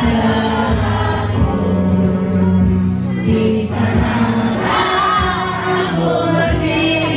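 A woman singing into a microphone over amplified backing music, with many voices singing along.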